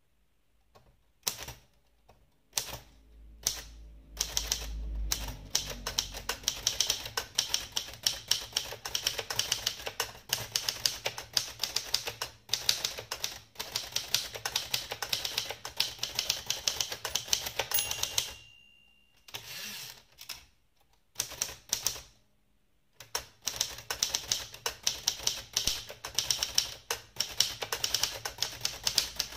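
abc 5000 typewriter (Adler Bielefeld) being typed on in fast runs of key strikes. About two-thirds of the way through, the typing pauses, a short bell-like ring sounds and a few separate clunks follow before the typing resumes. The ring is typical of the typewriter's end-of-line bell.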